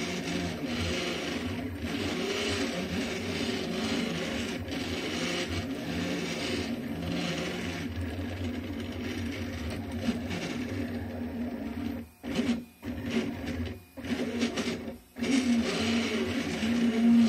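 Delta 3D printer's stepper motors whining while printing, the pitch of their tones shifting as the print head sweeps around the part. The sound cuts out briefly three or four times about two-thirds of the way through.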